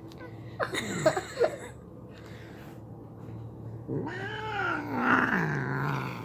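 Domestic cat yowling in protest: a short snarling cry about a second in, then a long drawn-out yowl that rises and falls in pitch near the end.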